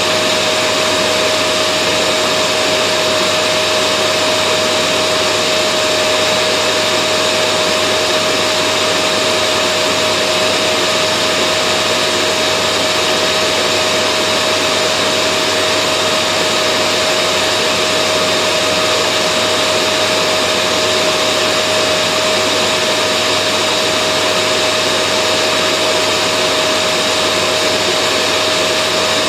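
Vacuum cleaner running continuously: an even rushing of air with a steady motor whine over it, unchanging in pitch and level.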